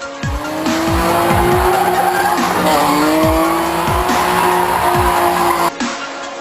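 Car tyres squealing and engines revving up and down as cars drift, over electronic dance music with a heavy repeating kick drum. The car sounds come in just after the start and cut off suddenly about a second before the end.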